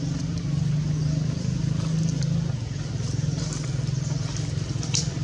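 Steady low engine hum, with a faint click near the end.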